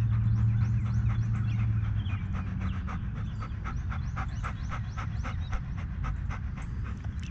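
Golden retriever panting hard after playing fetch on a hot day: quick, even breaths, about four a second. A steady low hum sits under the first two seconds, then stops.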